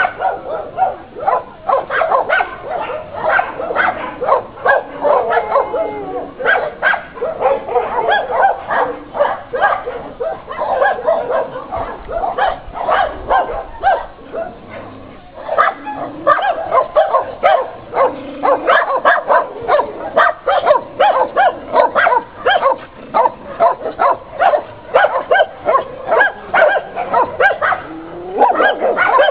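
Many dogs barking and yipping at once, the barks overlapping in a constant din, with a short lull about halfway through.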